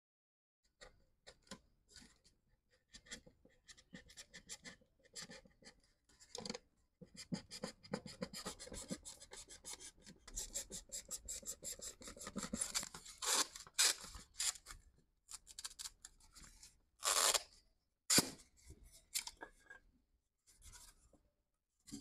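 Snap-off utility knife blade cutting through a polystyrene foam lid in many short scratchy strokes. The strokes are sparse at first, come thick and fast through the middle, and end with two louder scrapes near the end.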